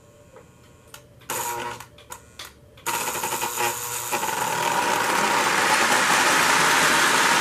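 Model train running on three-rail track: a few clicks and short rattles, then about three seconds in a steady rattle of wheels and motor sets in and grows louder as the cars pass close by.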